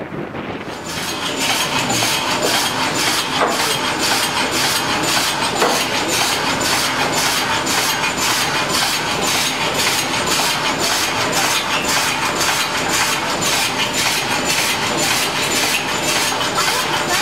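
Old sawmill machinery running: a steady mechanical clatter that comes up about a second in and keeps a regular beat of about two to three strokes a second.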